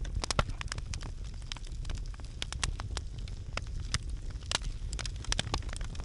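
Wood campfire in a metal fire pit crackling, with many sharp irregular pops over a low steady rumble.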